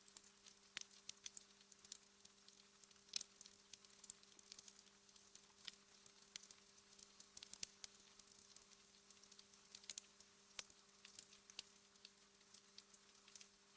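Wood fire crackling softly in a fireplace: irregular small pops and snaps, one louder pop about three seconds in, over a faint steady hum.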